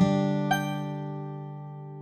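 Background music: a chord sounds at the start, one more note comes in about half a second later, and both ring on and slowly fade.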